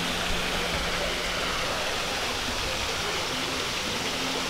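Small artificial waterfall splashing steadily down a rock face, a constant even rush of falling water.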